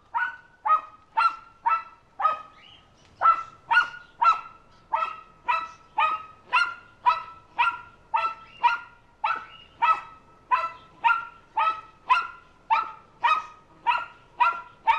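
A dog barking over and over in a steady rhythm, about two barks a second, each bark much the same in pitch.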